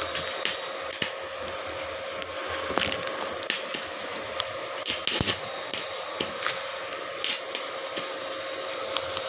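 Stick-welding arc from a small Ryu inverter welder: a steady hiss broken by irregular sharp crackles and pops as the electrode burns on thin steel.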